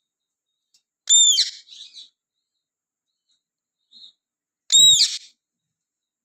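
Indian ringneck parakeet giving two loud, shrill calls, each a quick rise and fall in pitch with a short rough tail, about three and a half seconds apart, with a faint short chirp just before the second.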